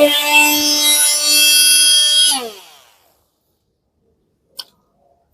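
Parkside PAMFW 20-LI B2 cordless oscillating multitool running with an 80-grit sanding pad on painted metal, a steady high whine that winds down when it is switched off about two and a half seconds in. A single short click comes near the end.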